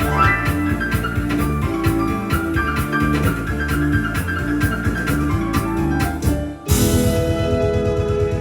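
Yamaha Electone electronic organ playing a fast instrumental, with a piano-like melody over a bass line and a drum rhythm. About six and a half seconds in, the rhythm breaks off for a moment. A loud cymbal crash then lands, followed by a rapid bass pulse.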